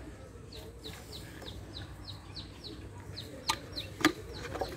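Birds chirping in a quick, steady series of short falling chirps, several a second, with two sharp clicks near the end.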